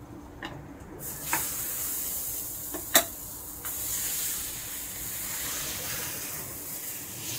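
Crepe batter sizzling with a steady hiss as it hits a hot round crepe griddle and is spread thin, starting about a second in. A few sharp clicks of the utensils come through, the loudest about three seconds in.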